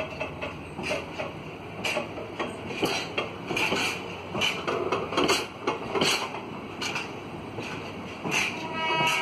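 Empty bitumen tank wagons rolling past, their wheels knocking and clanking irregularly over the track. Near the end a train horn starts to sound, a held chord of several steady notes.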